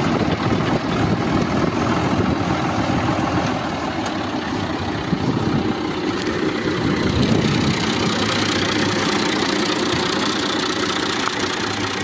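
Fiat 480 tractor's diesel engine running steadily at idle.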